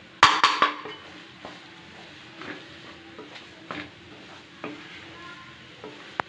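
Wooden spatula stirring and scraping scrambled egg and onion masala around a kadai, with faint sizzling from the frying underneath. The loudest scrape comes just after the start, then lighter scrapes and taps follow about once a second.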